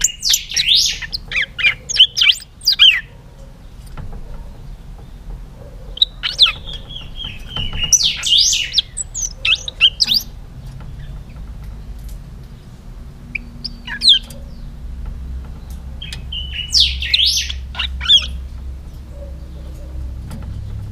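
Caged pica hueso singing in bursts of quick, high whistled notes that slide up and down. There are three phrases of two to four seconds each, at the start, about six seconds in and about seventeen seconds in, with a short call in between, over a steady low rumble.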